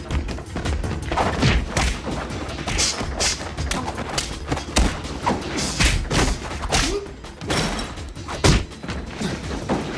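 Film fight sound effects: a rapid run of blows, thuds and crashes in close hand-to-hand combat, with music underneath; the hardest hit lands about eight and a half seconds in.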